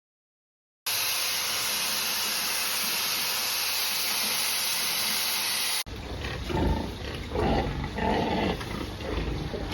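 A steady, even hiss for about five seconds that cuts off abruptly, followed by pigs grunting in short repeated calls.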